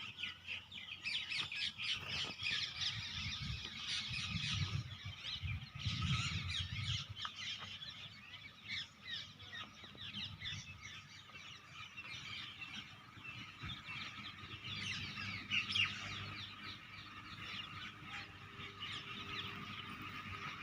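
Many birds calling at once, a dense, unbroken stream of short chirps and calls. A low rumble runs underneath for the first several seconds.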